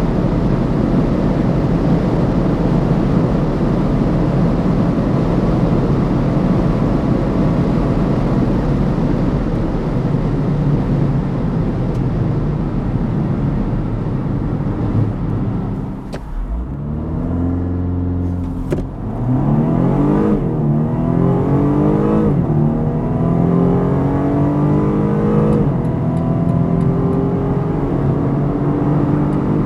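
BMW M135i xDrive at speed: a steady rush of engine, wind and road noise for about the first half. The engine note then drops as the car slows, and the car pulls hard again, its engine pitch rising through the gears with about three upshifts.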